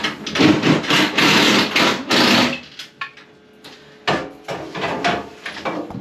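Tools working on wood: about two and a half seconds of loud rasping, scraping noise, a short lull, then a run of sharp knocks and taps.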